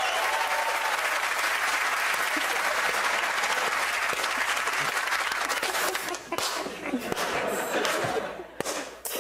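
Studio audience applauding, thinning out about six seconds in into a few scattered claps.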